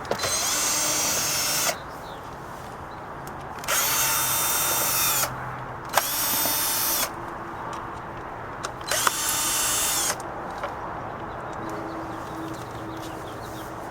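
Power drill with a Phillips bit backing out small cover screws: four separate bursts of motor whine, each winding up and then running down, about one to one and a half seconds long.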